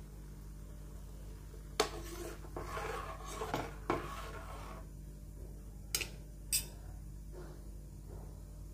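A slotted spatula stirring vegetables in a pan of water, scraping and knocking against the pan, with a sharp click about two seconds in and two more around six seconds in.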